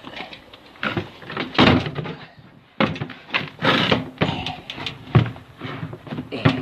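A string of knocks and clattering bangs from a door and equipment being handled, with the loudest bangs about a second and a half in and near the middle.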